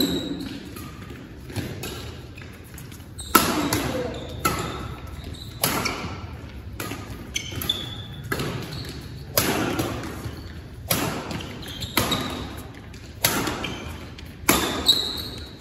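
Badminton rackets striking a shuttlecock in a doubles rally: a string of sharp smacks about once a second, ringing in a large hall. Short squeaks from court shoes fall between the hits.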